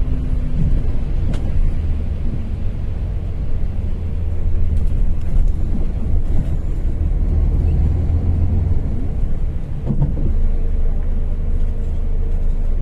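Inside a moving bus: a steady low rumble of the engine and road.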